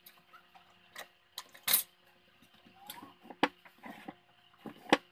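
A few sharp knocks and clatters of a wooden drawer and table panels being handled, the loudest about a second and a half in.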